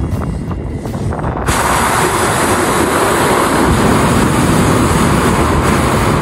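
Hot-air balloon's propane burner firing: a loud, steady roaring blast that starts suddenly about a second and a half in and keeps burning to the end.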